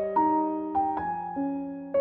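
Background music: a soft piano or electric-piano piece with gentle chords and a melody line, notes struck and left to fade.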